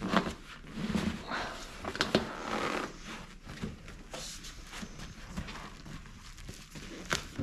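Vinyl seat cover being pulled and tucked over a car rear seat bottom's foam and metal frame: rustling and scraping of the material, with a few sharp knocks.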